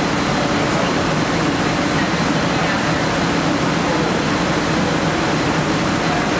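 Wind-wave tank's wind fan blowing high-speed air down the channel over the water, a loud steady rush mixed with the churn of the wind-driven waves, with a faint steady high whine.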